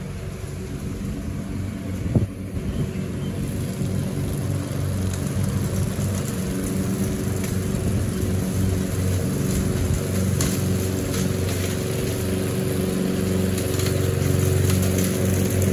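Gasoline walk-behind lawn mower engine running steadily under load, slowly growing louder as it comes nearer, with one sharp knock about two seconds in.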